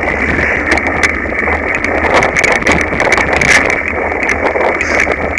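Mountain bike rattling over a rough dirt trail, heard through a handlebar-mounted camera: steady tyre noise on the dirt with frequent sharp knocks and clatter from the bike.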